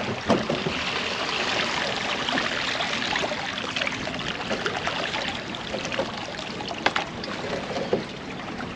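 Choppy water sloshing and lapping around a kayak beside bridge pilings. A few sharp clicks or knocks from gear being handled stand out, the loudest about seven seconds in.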